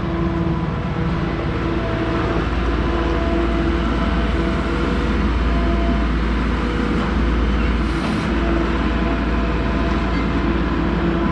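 Side-by-side utility vehicle driving at a steady speed: its engine runs with a low rumble and a steady whine over the noise of the ride.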